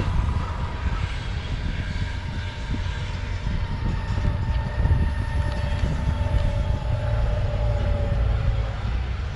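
Metroboard electric skateboard riding over asphalt: a steady low rumble of wheels and wind on the microphone, with a thin motor whine that drops in pitch in the second half.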